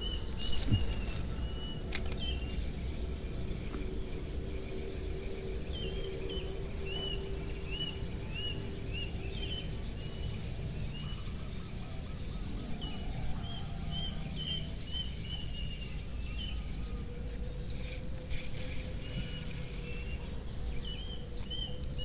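Outdoor ambience of birds and insects: a bird repeats short hooked chirps in runs of several notes, over a steady high insect whine and a low rumble of background noise. A brief knock about a second in.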